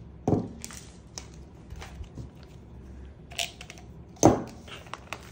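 Clicks and knocks of small hard objects being handled and set down, likely the airsoft silencer and thread adapter, irregularly spaced, with the sharpest knock about four seconds in.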